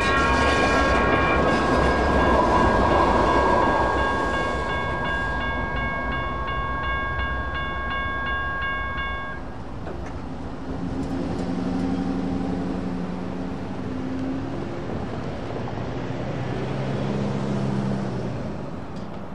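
CAF light rail train rolling through a grade crossing, its wheels running on the rails, while the crossing bells ring in steady tones. The bells cut off about nine seconds in, which marks the gates starting to rise. A low hum follows as the gate arms go up.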